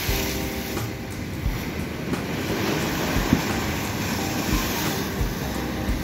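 Black Sea waves washing against a seafront embankment: a steady rushing noise with low rumbles.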